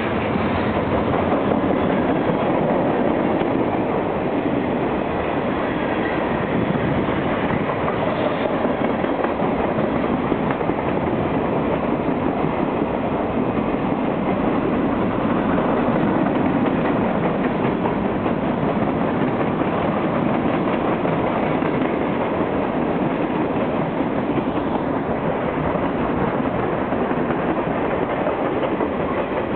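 Long mixed freight train rolling steadily past, the noise of its cars running on the rails without a break.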